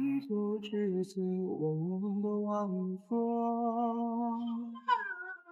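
A voice singing slow, drawn-out notes with no clear words, like a chant. It holds one steady note for nearly two seconds midway, then rises to a higher phrase near the end.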